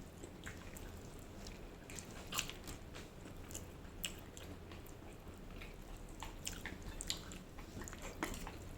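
A person chewing food close to the microphone, with irregular soft wet clicks and small crunches.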